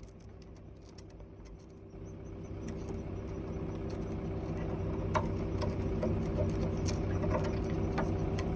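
Excavator engine idling steadily, growing louder about two seconds in, with scattered short clicks and knocks of metal being worked, as the bucket's tooth shank is cleaned up.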